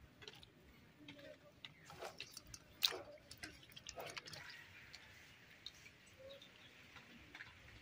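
Small fish being washed by hand in a steel bowl of water: faint wet squishing and dripping with scattered light clicks.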